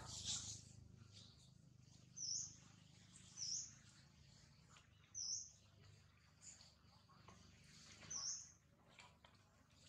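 A bird's short, high chirps, repeated several times at irregular gaps of one to three seconds, over faint outdoor background noise.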